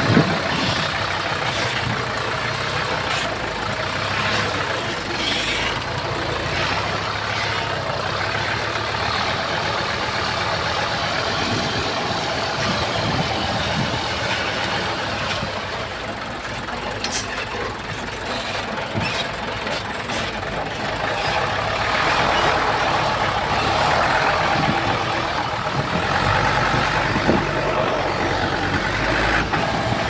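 Diesel engine of heavy earthmoving machinery running steadily, with a few sharp clanks, louder over the last third.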